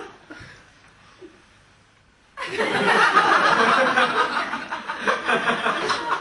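Audience laughter in a theatre. It starts abruptly about two seconds in and keeps going loudly, after a quieter opening.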